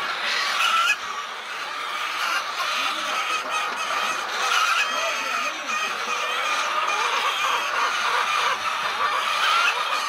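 A flock of birds calling continuously, many overlapping calls at once.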